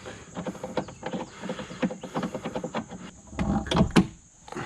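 Hand tools being handled and set down: a run of clicks and clinks with brief metallic ringing, and two louder knocks a little before the end.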